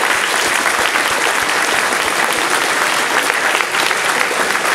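A large audience applauding: dense, steady clapping of many hands.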